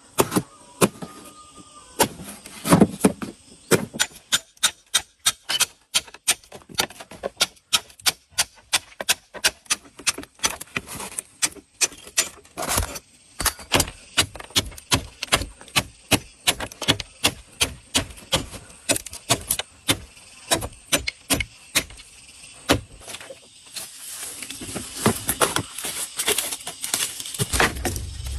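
Steady hand hammering: sharp blows about two to three a second, kept up for some twenty seconds. Near the end a rising rush of noise takes over.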